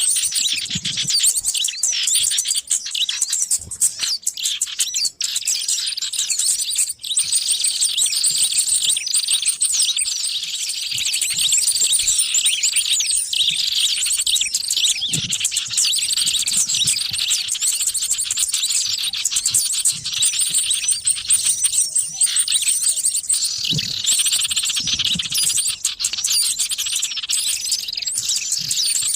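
Dense, noisy chorus of many small birds chirping and twittering at once, with overlapping high-pitched chirps and trills that never pause. It is a bird-lure (pikat) recording made to draw in small wild birds.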